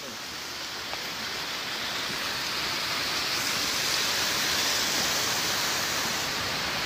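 Rushing water, a steady hiss that swells gradually over the first few seconds and then holds.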